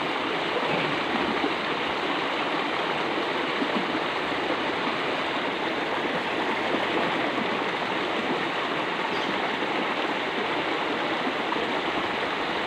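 Fast, turbulent water flowing along a concrete drainage ditch: a steady, even rush of running water.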